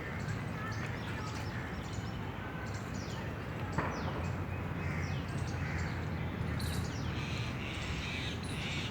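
Birds calling in short, falling chirps, repeated many times over a steady low background rumble, with one sharp click about four seconds in.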